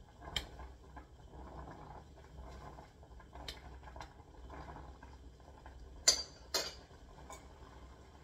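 A metal utensil clinking against a saucepan while noodles are stirred in boiling water: a handful of short sharp clinks, the loudest two close together about six seconds in, over a faint steady simmer.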